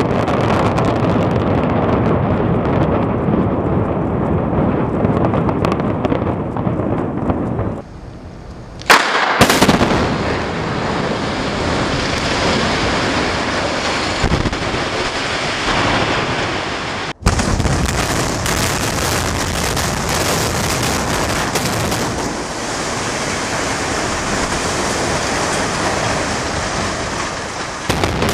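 Buildings collapsing in explosive demolitions: a long, loud rumble of falling structure and debris. About nine seconds in, demolition charges fire in a sharp crack, and another long rumble follows.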